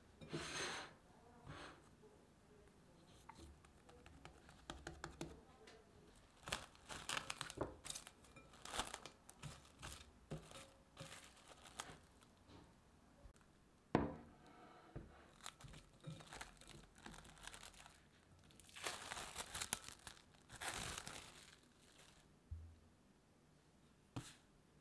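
Plastic cling film crinkling and tearing in scattered short bursts as it is handled over a glass bowl of bread dough, with one sharp tap about halfway through.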